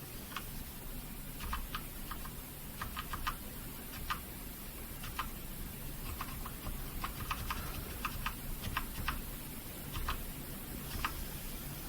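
Keys being pressed on a Patriot Viper V760 mechanical keyboard with brown switches: irregular key clacks, some single and some in quick runs of two to four, over a faint low hum.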